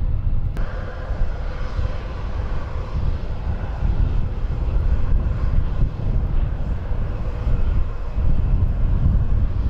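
Jet aircraft engines running at an airport: a steady heavy rumble with a faint whine that comes in about half a second in.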